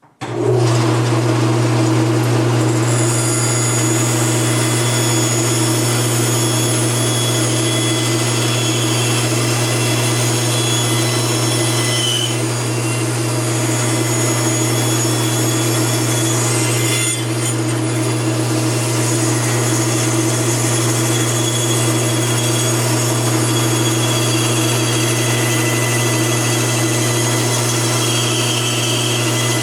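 Bandsaw switching on at the very start, then running steadily with a constant motor hum while its blade cuts through wood.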